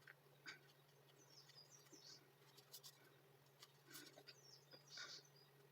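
Near silence: a faint steady room hum, with two brief clusters of faint, high bird chirps in the background and a few soft clicks.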